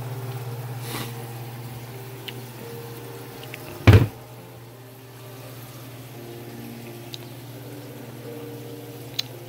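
Steady low kitchen hum, with one loud knock about four seconds in.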